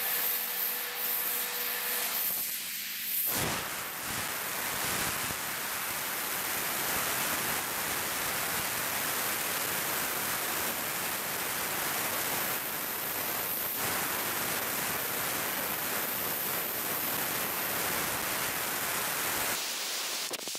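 Heat gun running on its high setting: a loud, steady rush of blown air. It starts abruptly about three seconds in, taking over from a quieter hum, and cuts off near the end.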